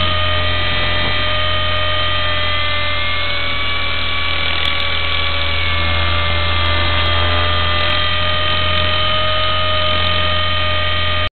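Raptor RC helicopter heard from its onboard camera in flight: a steady high-pitched engine and rotor whine over a low drone, one tone drifting slightly up and back down midway. The sound cuts off suddenly near the end.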